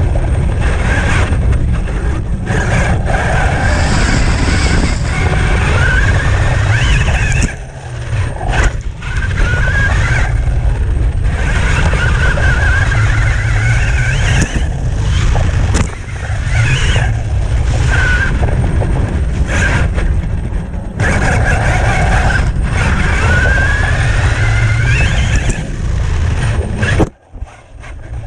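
Brushless electric motor of a Traxxas T-Maxx RC truck on 6S, whining and rising in pitch with each repeated burst of throttle, over a heavy rumble of drivetrain, tyres and rough ground. The sound drops out briefly near the end.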